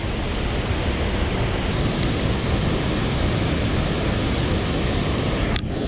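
Loud, steady rush of water pouring out of a dam during a heavy release. It drops out for an instant near the end.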